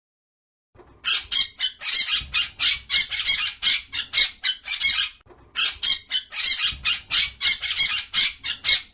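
Parrot squawking in a rapid run of short calls, about four a second, starting about a second in, with a brief pause about five seconds in before the calls go on.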